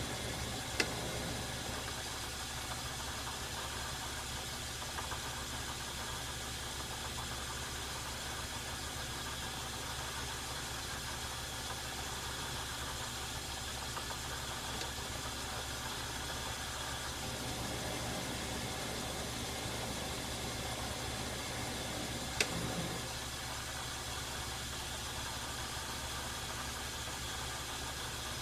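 Metal lathe running steadily with a motor and gear hum during a light single-point threading pass with a high-speed steel tool bit. Two sharp clicks stand out, one about a second in and another about 22 seconds in.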